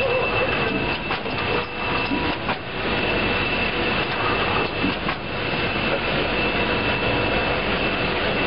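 Automatic side-sealing and heat-shrink packing line running: a steady mechanical whir with a steady high whine, and a few sharp clacks in the first few seconds.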